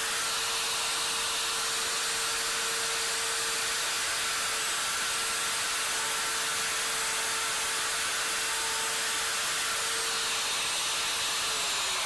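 Plunge router with a 1/4-inch core box bit running at full speed while routing a groove in a wood block. It makes a steady high whine over an airy hiss, and the pitch sags slightly near the end.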